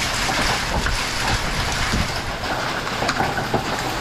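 Marble-sized hail and heavy rain pelting down in a dense, steady clatter, with scattered sharper hits, partly on a metal roof.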